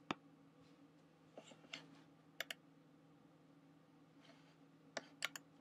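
Computer mouse buttons clicking over a faint steady room hum: one click at the start, a quick pair about halfway through, and three close clicks near the end.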